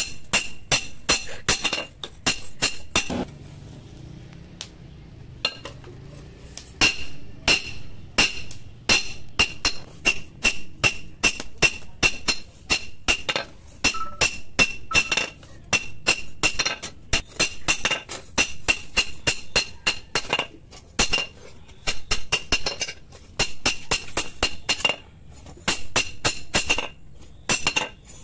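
Hand hammer striking a red-hot steel sickle blade on a railway-rail anvil: a run of sharp, ringing metallic blows, about two to three a second, with a pause of about two seconds near the start.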